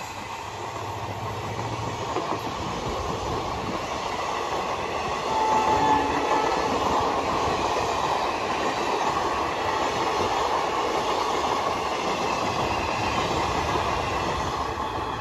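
Indian Railways passenger coaches rolling past, their wheels running on the rails in a steady rumble and clatter. About five and a half seconds in, a brief high tone sounds as the noise peaks.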